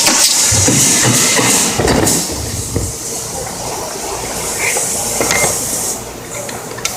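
Compressed air hissing from a pneumatic stapler's air supply, strong for about two seconds and then weaker until it fades out near the end. A couple of sharp clicks come just before the end.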